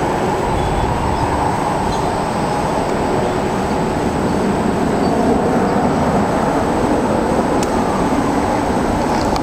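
Boeing 777-300ER's twin GE90 turbofan engines heard from below as the airliner passes overhead on approach with its landing gear down: a loud, steady jet rumble.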